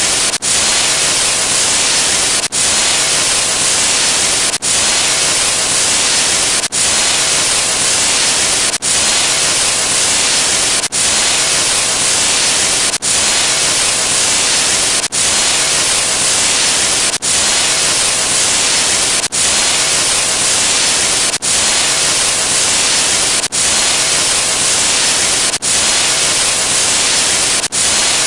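Loud, steady static hiss like white noise, broken by a brief dip with a click about every two seconds as the sound effect restarts.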